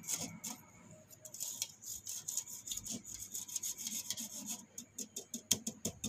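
Metal spoon scraping rice flour through a stainless-steel wire-mesh sieve: quick repeated rasping strokes, a few a second, sharpest near the end.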